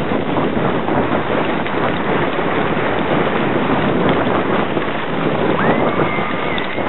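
Steady rushing noise of a sledge speeding downhill: runners hissing over packed snow, mixed with wind buffeting the microphone. Near the end a thin, high whistle-like tone rises and holds for about a second.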